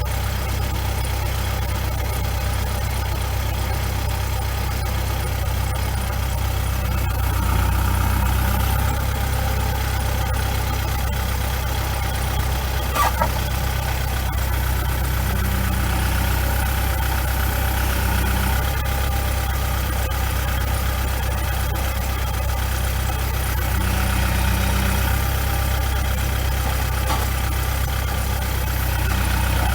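Kubota L4701 tractor's diesel engine running steadily, swelling slightly a few times as it works. A single short knock is heard about halfway through.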